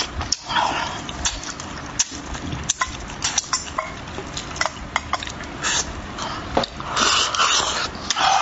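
A person eating a big mouthful of braised fish, close to the microphone: wet chewing with many sharp mouth clicks and smacks, and a longer hissy stretch near the end.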